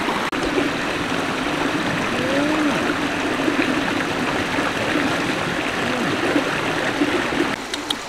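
Shallow stream running over rocks: a steady rush of water that drops to a quieter background near the end.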